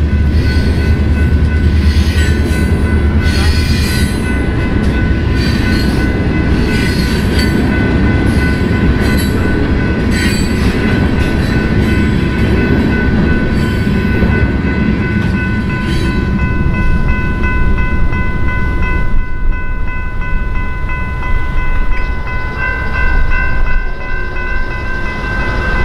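Railroad tank cars rolling past over a grade crossing, with the wheels rumbling and clattering, while the crossing's warning bell rings steadily. About 19 seconds in, the train's rumble drops away as the last cars clear. The bell keeps ringing until the gates rise near the end.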